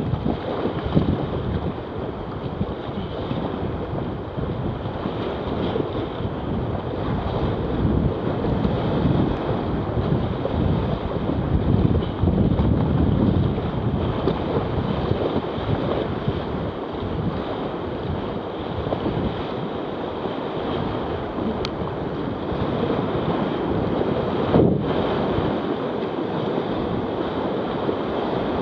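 Whitewater rapids rushing and churning around a kayak, with the paddle splashing through the water and wind buffeting the microphone in a steady loud roar.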